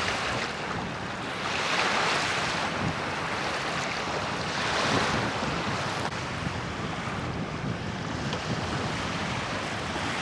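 Strong wind buffeting the microphone: a steady rushing noise with a rumbling low end, swelling in gusts about two and five seconds in.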